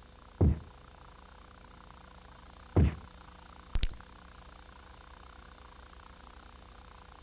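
Two short, dull thumps a little over two seconds apart, then a sharp double knock about a second later, over a faint steady hiss.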